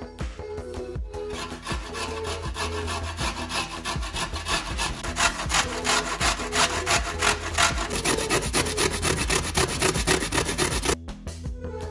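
Carrot being grated on a stainless steel box grater: a fast, even run of rasping strokes, about three a second. It starts about a second in and stops short near the end.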